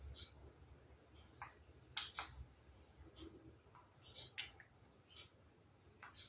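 Faint, irregular clicks and small splutters from a plastic squeeze bottle of thin acrylic pouring paint being squeezed out onto a canvas.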